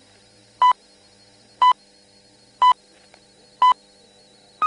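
Swiss Broadcasting Corporation shortwave time signal: short beeps about a second apart, then a slightly higher-pitched final beep at the very end, the last tone marking exactly 11 hours GMT. Faint steady tones of shortwave reception sit underneath.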